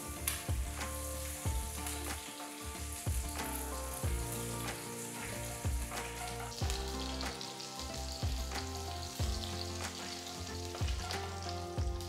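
Hot oil sizzling around mustard seeds, cumin, urad dal and curry leaves in a nonstick pan as a wooden spatula stirs them. Background music with a steady beat plays throughout.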